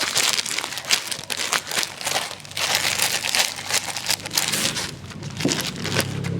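Packaging crinkling and rustling irregularly as a parcel is handled and opened by hand.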